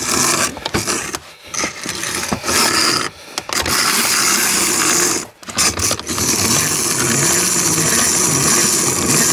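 Hand-cranked grinding wheel grinding a replaceable sawmill blade tooth: a steady rasping grind, broken by a few short pauses. The tooth's end was flattened by hitting a nail and is being ground back into shape.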